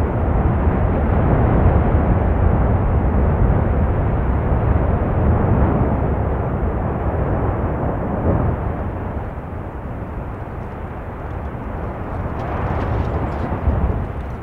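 Steady, deep roar of lava fountains jetting and splashing from an erupting volcanic crater, easing a little midway, with a few sharp crackles near the end.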